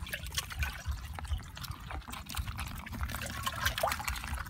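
Muddy water splashing and dripping as a hand gropes and scoops in a small water-filled hole, with many small irregular splashes.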